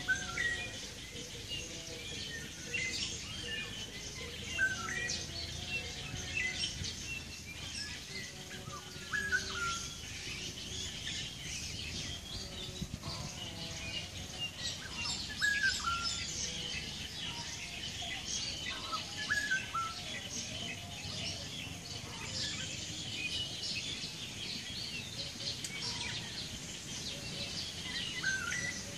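Distant birdsong from an unidentified bird, faint: short falling whistled notes repeated every few seconds. Dense high chirping from other birds runs underneath.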